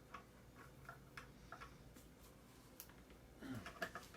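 Faint, scattered light clicks and taps of metal lamp parts being handled while working at a stuck nut, with a short cluster of louder clicks about three and a half seconds in.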